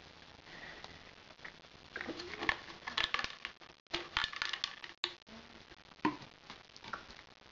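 Scattered clicks and knocks of a plastic bottle filled with dog treats as a Pembroke Welsh Corgi puppy noses and pushes it about, in short clusters a few times.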